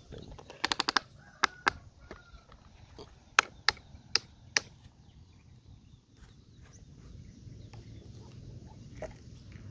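Sharp plastic clicks from a hand-moved toy excavator: a quick run of four, then single clicks spread over the next few seconds, fading to faint ticks and scraping as the bucket works loose dirt.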